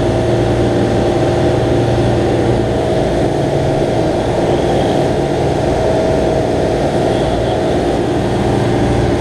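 Fishing boat's engines running steadily under way, with the wake churning at the stern.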